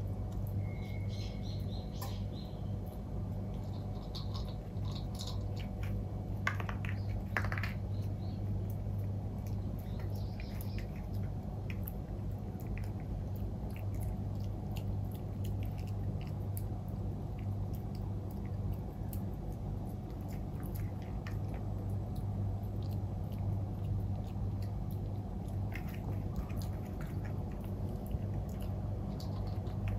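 Maltipoo puppy eating dry kibble from a bowl: scattered crunches and clicks as it bites and chews. Underneath is a steady low hum.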